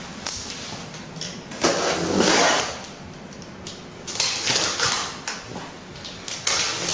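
The box and packaging of a TSC TX200 barcode printer being handled as it is unboxed: uneven bursts of scraping and rustling with a few sharp clicks.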